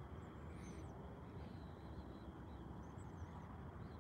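Faint outdoor night ambience: a steady high-pitched hum with a few short, faint high chirps, one about half a second in and another about three seconds in.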